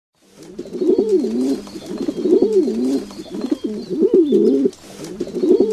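Domestic pigeon cooing: low coos that glide up and down in pitch, repeated in about four bouts with short dips between them.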